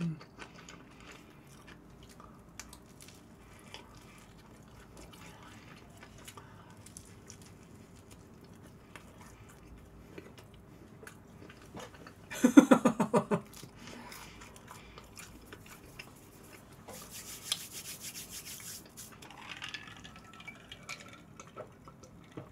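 Close-miked chewing of pizza: soft wet mouth clicks and smacks. About twelve seconds in comes a brief hummed voice sound from the eater, and near the end gulps as she drinks from a glass.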